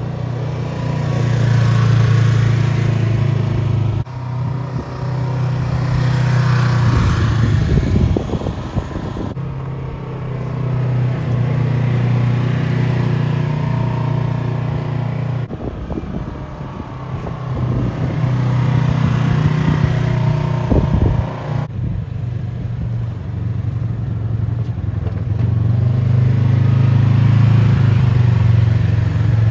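Polaris RZR XP1000 side-by-side running and driving, its engine note steady and strong. The sound comes in several stretches joined by sudden cuts.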